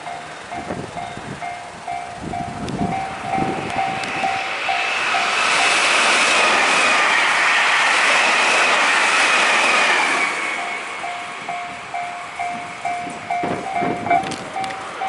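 Train passing at speed close by, loudest in the middle, with wheel thumps over rail joints as it comes in and goes away. A level-crossing warning bell dings in a steady pulse, about three a second, drowned out while the train goes by.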